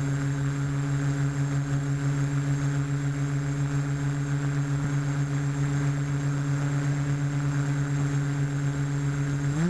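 Brushless motors of a 250-size FPV racing quadcopter spinning at a steady armed idle, an even hum. Near the end the pitch rises as the throttle comes up for takeoff.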